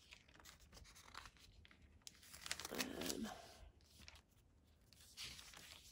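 Soft rustling of thin Tomoe River paper pages and small clicks as a Hobonichi Weeks planner's monthly spreads are turned by hand. A short low pitched sound comes about three seconds in.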